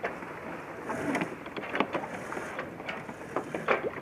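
Sailboat sheet winch ratcheting in short, irregular clicks as the crew works the lines, over a steady rush of wind and water.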